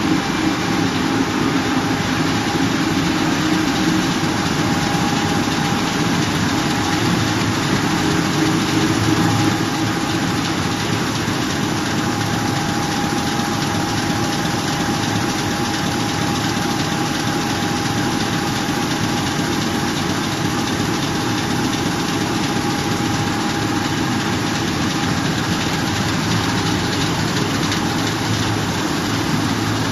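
Offset printing presses running: a loud, steady mechanical din with a faint steady whine, easing slightly about ten seconds in.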